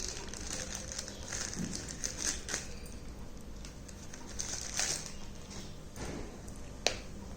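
Packaging being handled during an unboxing: irregular rustling and light clicks, with one sharp click about seven seconds in.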